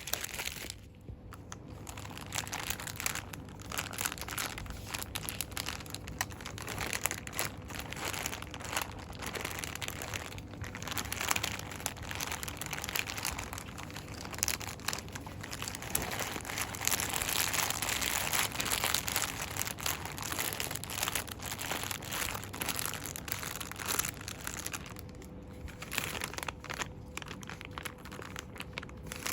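Shop product packaging crinkled and rustled quickly by hand in fast, dense bursts, easing off briefly about a second in and again near the end.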